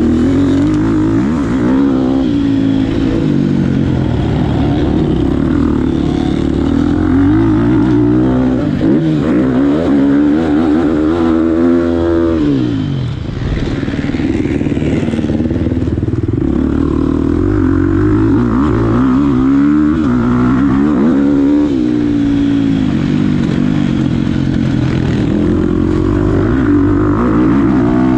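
The 250 cc four-stroke single-cylinder engine of a 2022 GasGas MC250F motocross bike, ridden hard around a dirt track. The engine revs up and falls back repeatedly as the throttle is opened and closed, with a brief drop-off about halfway through.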